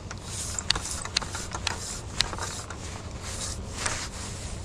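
A telescoping extension pole, with a rake taped to its end, being handled and extended: about four sharp clicks roughly half a second apart, with sliding and rustling sounds.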